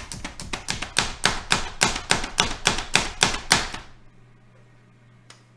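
Pampered Chef plunger-style food chopper pumped by hand, mincing fresh parsley: a fast run of sharp clacks, about four to five strokes a second, that stops about four seconds in. One faint click follows near the end.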